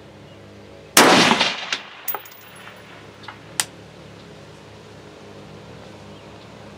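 A single shot from an AR-15 rifle in 5.56 NATO about a second in, trailing off over half a second. A few smaller sharp clicks and knocks follow over the next two and a half seconds.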